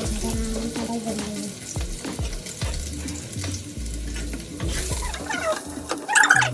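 Boiled potato pieces sizzling as they fry in oil in a pan, with a spatula clicking against the pan as they are stirred. Near the end, a high wavering whine cuts in over the frying.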